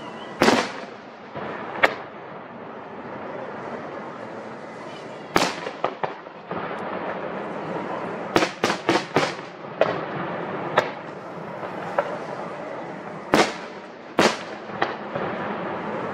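Aerial firework shells bursting, heard at a distance as sharp bangs. They come singly and in clusters, with a quick run of four about eight seconds in, over a steady background hiss.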